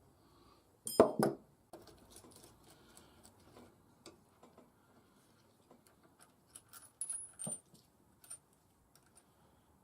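Scattered metallic clinks and knocks of small metal objects being handled and set down, with a loud double knock about a second in and a cluster of ringing clinks near the end.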